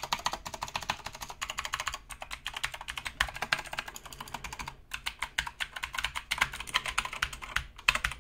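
Fast typing on a Keychron K4 mechanical keyboard with blue switches: a dense stream of sharp clicky keystrokes, with brief pauses about two and five seconds in, stopping just before the end.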